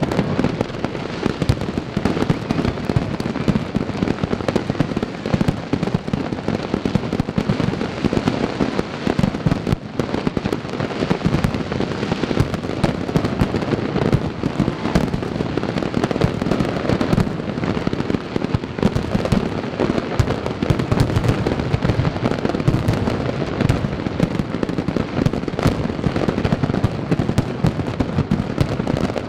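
Fireworks display: aerial shells bursting in a rapid, unbroken barrage of bangs, many overlapping each second, with no let-up.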